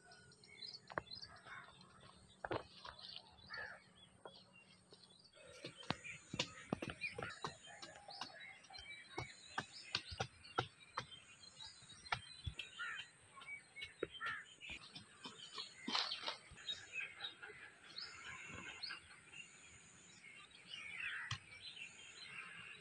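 Short-handled hoe chopping into dry, stony soil, with many short knocks and scrapes that start about five seconds in, while birds chirp.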